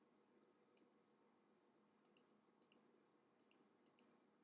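Faint clicks of a computer mouse, about five short clicks spread out over a few seconds, some in quick pairs, against near silence.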